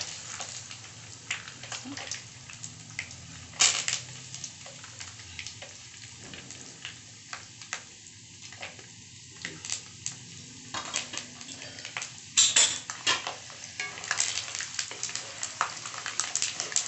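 Peanuts frying in hot oil with cumin and mustard seeds in a kadhai: a steady sizzle with many sharp crackling pops from the spluttering seeds. A spatula stirs the peanuts in the pan near the end.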